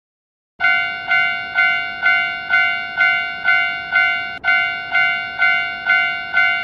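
Japanese railroad crossing warning bell ringing in an even kan-kan rhythm, about two strikes a second, starting about half a second in.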